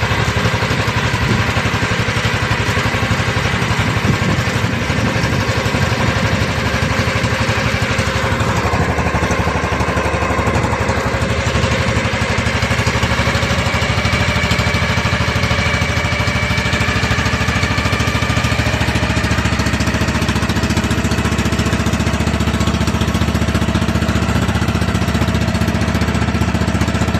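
Small engine of an outrigger fishing boat running steadily at low speed while a net is paid out, its pitch drifting slightly.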